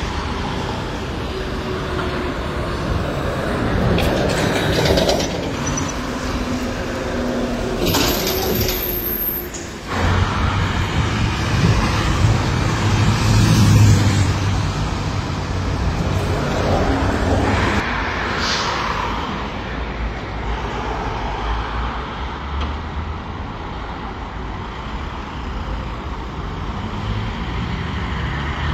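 City street traffic as trolleybuses, cars and a bus pass, with a heavy low rumble from a passing large vehicle near the middle. A few faint gliding motor tones come early on, and the sound changes abruptly twice.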